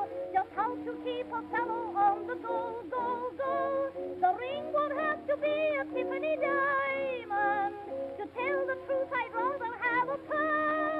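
Early acoustic-era phonograph record of a popular song with small orchestra: several melodic lines with vibrato. The sound stops above about 5 kHz, giving it a narrow, old-record tone.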